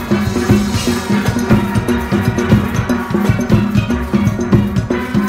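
Steel band playing live: ringing steel pans over deep bass pans, with drums keeping a steady, quick beat.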